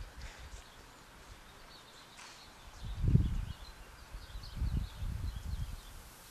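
Faint bird chirps over outdoor ambience, broken by low rumbling gusts of wind on the microphone about three seconds in and again shortly after.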